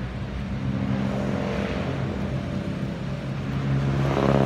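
A vehicle engine idling steadily, swelling briefly near the end.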